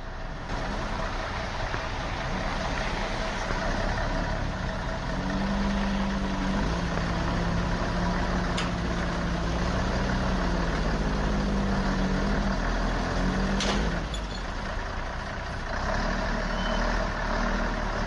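Vehicle engine running with steady road noise, as picked up by a dashcam. The engine's tone shifts up and down in the middle of the stretch, with a couple of faint clicks.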